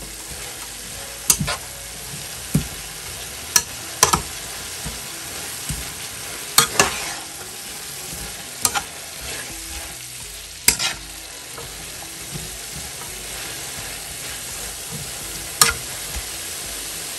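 Cabbage and green beans sizzling in a frying pan while a spatula stirs and turns them, with a sharp knock of the spatula against the pan every second or few.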